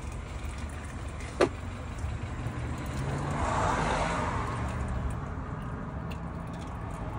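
A car driving past: its sound swells to a peak about four seconds in and fades, over a low steady hum. A single sharp click comes about a second and a half in.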